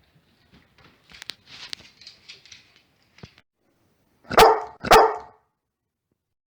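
Labrador retriever barking twice, about half a second apart, loud and short, after a few seconds of light rustling and clicking.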